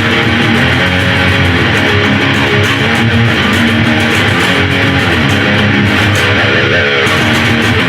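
Outro music: loud rock with strummed electric guitar over bass and drums.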